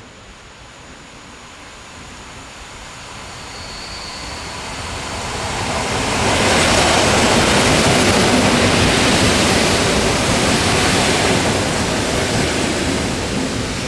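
An EN57 electric multiple unit approaches and runs past on the rails: an even rushing noise that swells over the first six seconds, stays loud as the cars go by, and eases slightly near the end.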